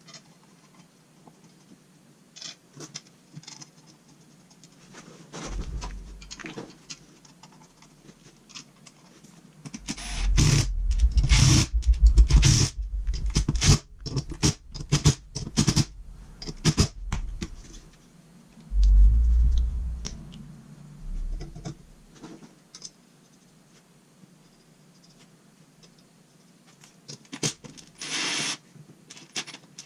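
Scooter wheel parts and tools being handled on a workbench: scattered clicks, scrapes and knocks. Two busier stretches of clatter come with heavy low thumps, one in the middle and a shorter one a little later.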